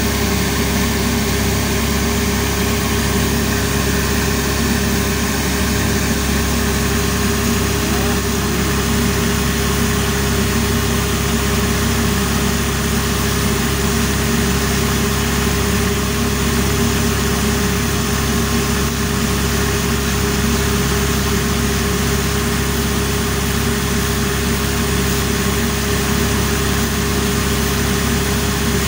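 Motor of a jewellery chilai (cutting) machine running steadily with a constant hum that does not change.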